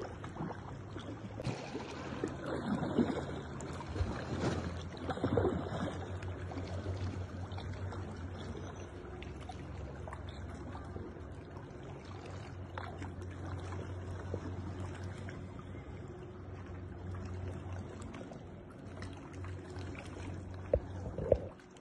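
Water splashing and trickling around a sea kayak as it is paddled, over a steady low hum, with louder stretches about two to three seconds in and again around five seconds.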